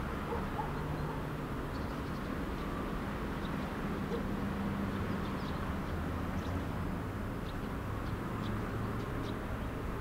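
Village outdoor ambience: short, faint bird chirps scattered over a steady low hum like a distant engine.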